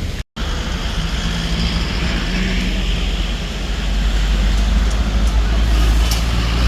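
A motor vehicle's engine running close by with a steady low hum, growing louder from about four seconds in, after a brief cut in the sound near the start.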